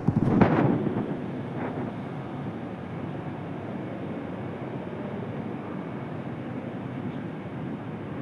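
Steady roar of a running steam boiler and turbine plant, with a brief loud clatter in the first second.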